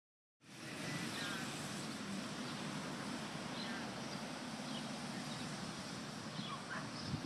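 Outdoor ambience: a steady background hiss and low hum with a few short, faint bird chirps, and a brief louder low burst near the end.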